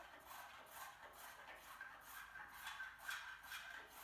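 Faint, rhythmic scraping strokes of a hand tool shaping wood, about two strokes a second.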